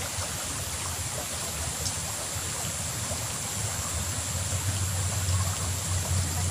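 Small stream flowing past, a steady rush of water, with a thin steady high tone above it and a low rumble that grows stronger after about four seconds.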